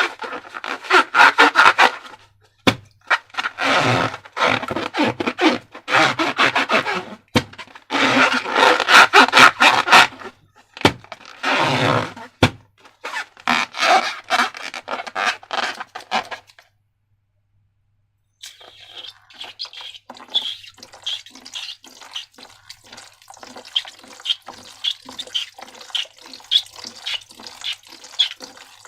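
Slime being squeezed and worked by hand: loud, wet, crackling squelches in bursts several seconds long. After a short silent break comes a quieter run of small sticky clicks and pops, a few a second.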